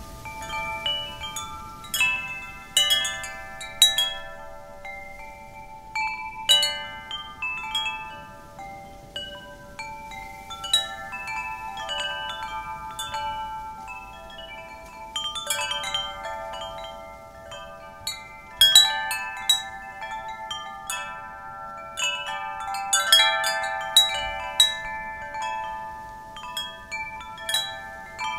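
Wind chimes ringing as the wind moves them: irregular strikes, often several close together, each leaving clear metallic tones ringing and overlapping. A faint low wind rush sits underneath.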